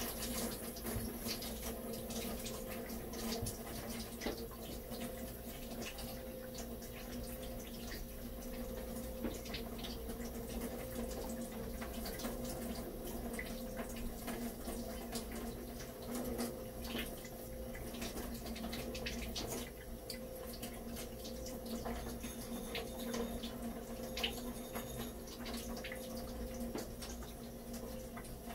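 Tap water running into a sink as fishing gear is rinsed under it to wash off the salt, with small clicks and splashes from the handling over a steady low hum.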